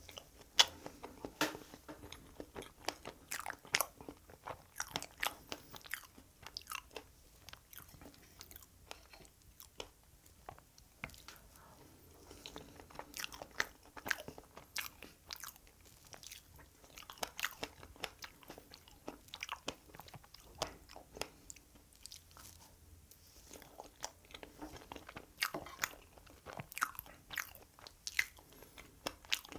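Close-miked chewing of strawberry cream cake: wet, sticky mouth clicks and smacks at an irregular pace, with short pauses between bites.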